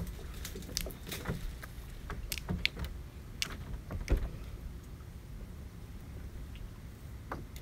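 Wooden boat under way: scattered knocks and creaks from the hull and the mast and its rigging, over a low steady rumble. The knocks come thickly for the first four seconds or so, then thin out.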